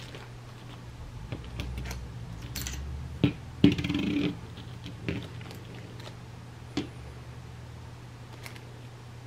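Light clicks and knocks of small metal chainsaw engine parts handled on a table: a crankshaft and new crankshaft bearing seal assemblies being picked up and fitted together, with a louder clatter a little after three seconds in. A steady low hum runs underneath.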